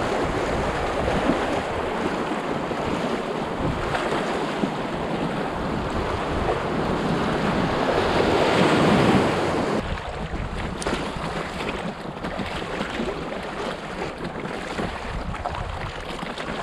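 River water rushing and splashing around an inflatable canoe in small whitewater rapids, with wind buffeting the microphone. It swells to its loudest just before an abrupt drop about ten seconds in.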